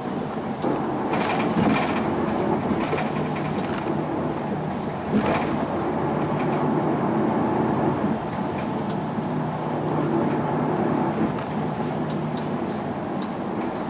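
Isuzu Erga PJ-LV234L1 city bus's six-cylinder diesel engine running steadily while the bus drives, heard inside the passenger cabin with tyre and road noise. A few sharp knocks and rattles come about a second in and again about five seconds in.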